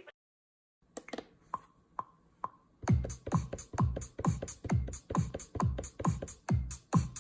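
Electronic drum beat from samples triggered on a Maschine Mikro Mk3 pad controller. After about a second of silence come a few sparse clicky hits. A little under three seconds in, a steady pattern of deep, pitch-dropping kicks with hi-hat ticks starts.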